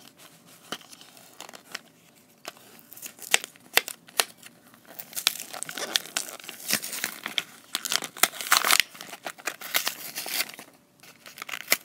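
Plastic toy packaging being torn open and crinkled by hand: irregular crackling and tearing, sparse at first and busier after about two seconds.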